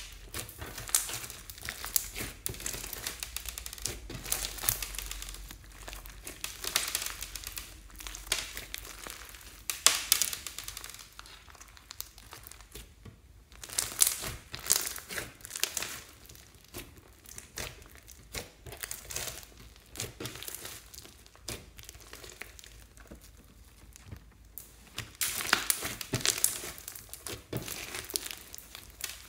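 Hands squeezing and kneading a large mass of glossy slime mixed with foam beads, giving dense, irregular clicks and crackles of the slime working. Louder flurries come about ten, fourteen and twenty-six seconds in, with a quieter stretch before the last one.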